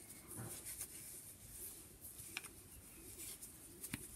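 Faint clicks and rustle of 10mm knitting needles working chunky wool. Two sharper needle clicks stand out, one a little past midway and one near the end.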